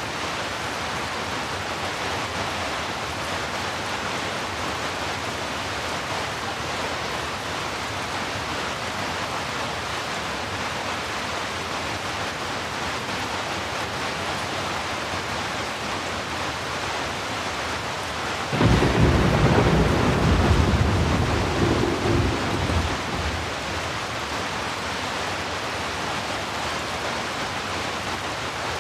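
Heavy, steady rain. About two-thirds of the way through, a sudden low rumble of thunder breaks in over it and dies away over about five seconds.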